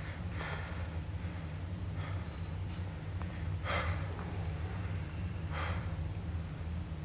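A man breathing hard close to a phone's microphone after a fright: four heavy breaths about a second and a half to two seconds apart, over a steady low hum.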